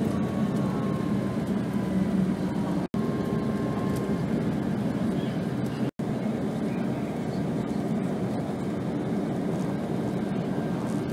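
Steady low rumble of a coach's engine and tyres, heard from inside the bus at highway speed. It cuts out completely twice for a moment, about three and six seconds in.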